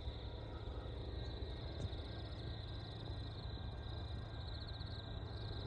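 Faint, steady low rumble of a distant diesel freight locomotive working up a grade, under a high, steady chirring of insects.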